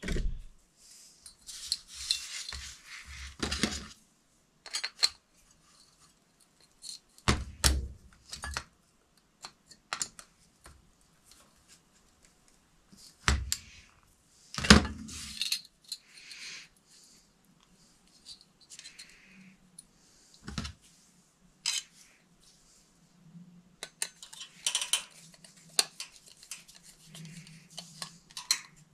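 Needle-nose pliers, a screwdriver and wires being handled against a porcelain light fixture while it is wired: scattered sharp clicks and clinks, with wire scraping and rustling in between.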